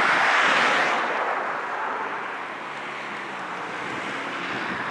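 EMD GP16 diesel locomotive running as it rolls slowly past. A loud hissing rush in the first second or so fades into a steady low engine rumble.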